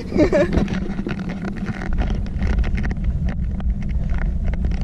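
Summer toboggan sled running fast down a steel trough track: a steady rolling rumble with frequent clicks and rattles, getting heavier about two seconds in. Wind buffets the microphone throughout.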